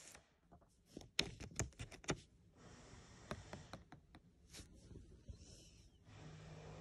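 Quiet, light clicks and taps of a foil football sticker being handled and pressed down onto a sticker album page, a quick run of them about a second in, then a few scattered ones.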